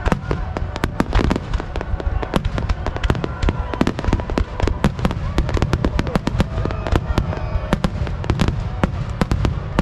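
Dense barrage of aerial firework shells bursting, many sharp bangs every second over a continuous low rumble.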